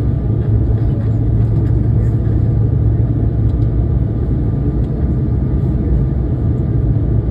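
Airliner cabin noise during the climb after takeoff: a steady low rumble of the engines and airflow, with a faint steady whine above it.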